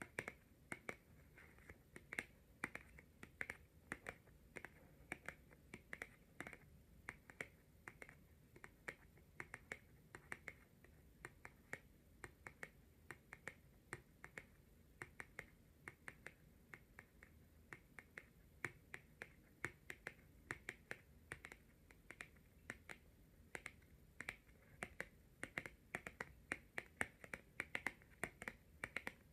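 Long natural fingernails tapping on tarot cards: a quick, uneven patter of light, sharp clicks, coming more thickly near the end.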